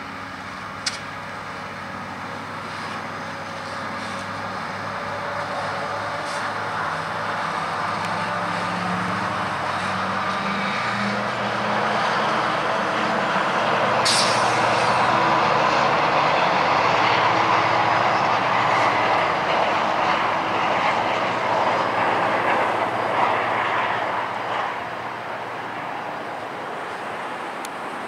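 GO Transit double-deck commuter train departing, led by MP54PH-3C and MP40PH-3C diesel locomotives: the locomotives' engines pulling under power, then steady wheel-on-rail noise from the passing coaches. The noise builds to its loudest midway and eases near the end, with a brief sharp high click about halfway.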